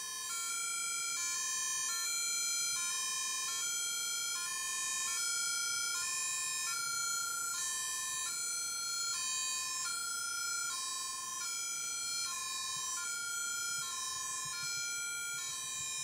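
Electronic two-tone Martinshorn siren from a sound module built into a LEGO fire engine model, switching steadily between a low and a high note about every three-quarters of a second, in the German 'tatü-tata' pattern.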